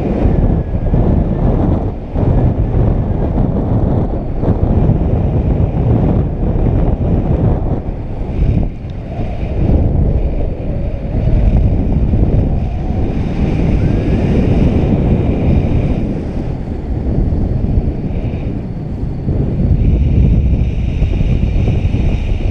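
Airflow buffeting a GoPro's microphone in paraglider flight: loud, gusty wind noise that swells and dips.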